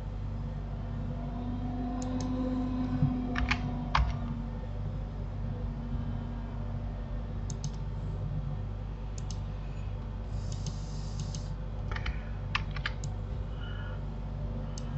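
A dozen or so scattered, separate clicks of computer keys while working in a 3D modelling program, over a steady low hum.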